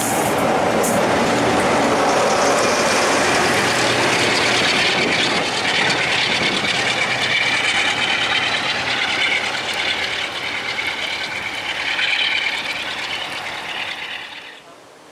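Steam-hauled railtour train passing close by: a steady, loud rushing rumble of wheels on rail, with a high ringing whine joining it after about five seconds. The sound cuts off suddenly near the end.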